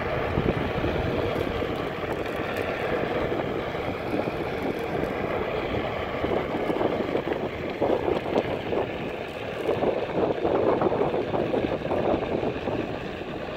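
Onewheel electric board rolling downhill on asphalt: a steady hum from its hub motor and tyre, with wind buffeting the phone's microphone, heaviest about eight to eleven seconds in.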